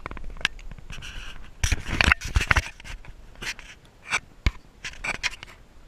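Handling noise on a small camera: an irregular run of knocks, clicks and scrapes, busiest about two seconds in.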